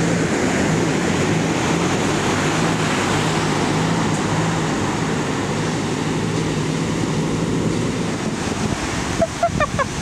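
Ocean surf breaking and washing in, a steady rush of waves. Wind noise on the microphone blends into the rush.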